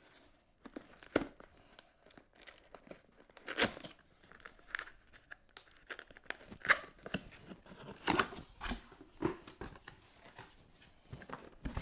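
Cardboard shipping box being opened by hand: irregular tearing and scraping of cardboard, with scattered taps and rustles as the lid flap is lifted.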